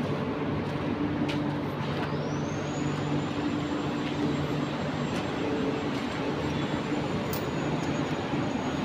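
Steady industrial plant noise at a ferroalloy smelting furnace: a constant rushing roar under a low electrical hum, with a thin high whine coming in about two seconds in and holding, and a few faint clicks.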